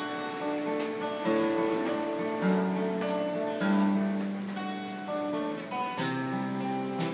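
Steel-string acoustic guitar strummed in an instrumental passage, moving to a new chord every second or so.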